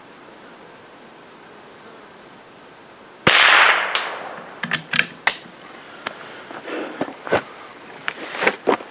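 A single shot from a CZ 455 bolt-action .22 LR rifle about a third of the way in: a sharp crack with a short tail. Several light clicks follow, with a steady high insect buzz underneath.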